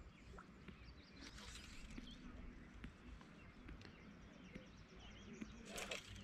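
Near-quiet pondside ambience: faint scattered bird chirps over a low rumble, with a brief rustle near the end.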